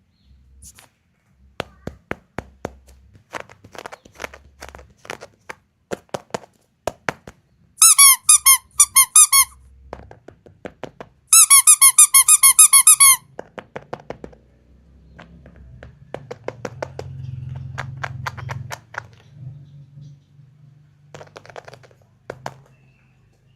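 Small plastic toys and packaging tapped and clicked in the hands, with two loud runs of rapid, high squeaks, several a second, from a squeaking toy in the middle.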